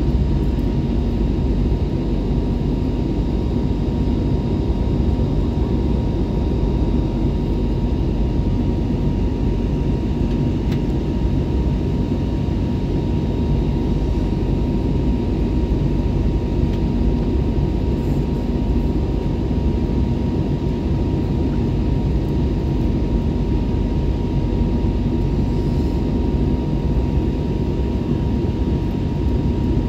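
Inside an airliner cabin in flight: a steady low rumble of the engines and rushing air, with a thin steady whine above it.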